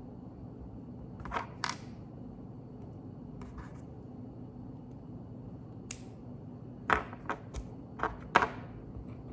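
Plastic Lego bricks being handled and snapped together: scattered sharp clicks, with a quick run of them near the end, over a steady low hum.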